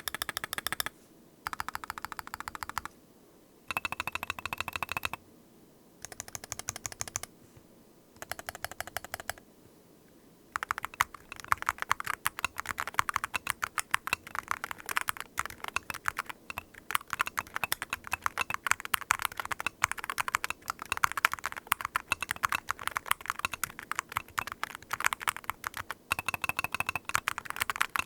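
WOB Rainy75 RT keyboard with TTC King magnetic switches: five short bursts of fast, rapidly repeated keystrokes with pauses between them, then steady continuous typing from about ten seconds in.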